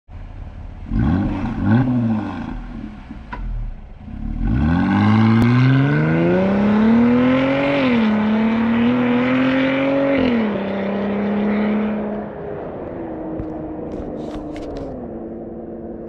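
Jeep Gladiator's V6 engine revved once, then pulling away hard, its pitch climbing and dropping at two upshifts. It then settles to a steadier, lower note that fades as the truck drives off.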